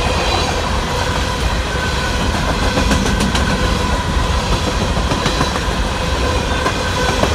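Coal train's hopper cars rolling past close by: a steady rumble of steel wheels on rail, with a few clicks as wheels cross rail joints.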